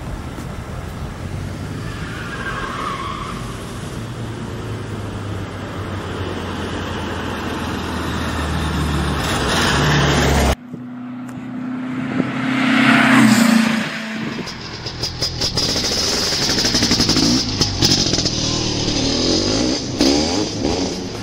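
Air-cooled VW Beetle flat-four engine running as the car drives by, growing louder over several seconds. About halfway through the sound cuts abruptly, and the engine then revs with a rising pitch for a couple of seconds before settling into an uneven drone.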